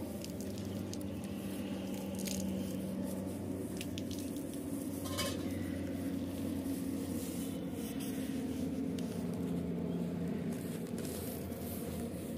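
Soft scuffling and patters from two puppies tussling on a jute sack, with scattered faint clicks, over a steady low hum.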